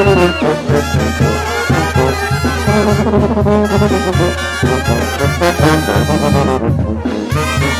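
Brass band playing music, trumpets and trombones over a steady bass line with a regular percussive beat.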